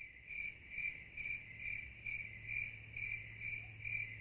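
A cricket chirping steadily: evenly spaced high-pitched chirps, about two or three a second, all on one pitch.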